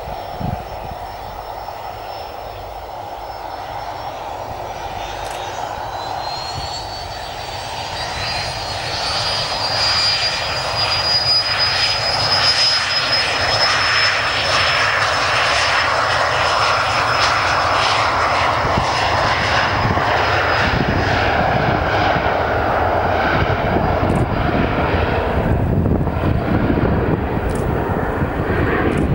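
The twin Williams FJ44 turbofans of a Cessna 525 Citation CJ1 spool up for takeoff: a high jet whine climbs in pitch and grows louder over several seconds. The engines then run steadily at takeoff thrust as the jet accelerates down the runway. Near the end the whine fades, leaving a low rumble.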